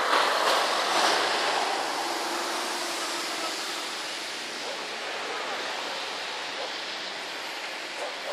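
Steady rushing wind noise across the phone's microphone in an open snowy field, a little stronger in the first second.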